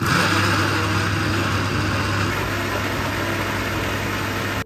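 Personal blender's motor switched on and running steadily at full speed, blending bananas into a smooth purée; a constant low hum under a loud whirring rush that cuts off abruptly when the button is released.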